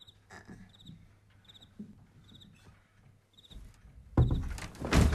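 Cricket chirping faintly in short pulsed chirps about once a second, a night-time background. About four seconds in, a sudden loud burst of noise breaks in.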